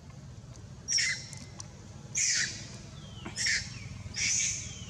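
Baby monkey crying: four shrill, high-pitched cries about a second apart, each dropping in pitch.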